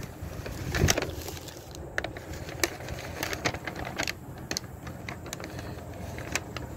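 Food packaging being handled and unpacked: a string of sharp crinkles and rustles, over a low steady rumble of wind on the microphone.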